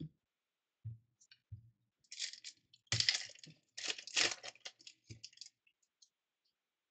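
Foil wrapper of a 2014 Panini Elite football card pack being torn open and crinkled, a run of crackly rustling lasting about three seconds. A couple of soft knocks come first as the pack is picked up off the table.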